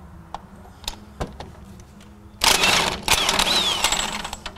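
A few light metal clicks, then a power impact wrench running loudly in two bursts with a short break between, spinning out the 21 mm bolt at the driver's-side end of the track bar.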